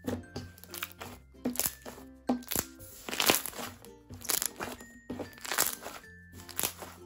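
Purple clear-glue slime, freshly activated with laundry detergent, being pressed, folded and stretched by hand, giving a quick string of sharp wet pops, squelches and crackles, loudest about halfway through. Light background music plays under it.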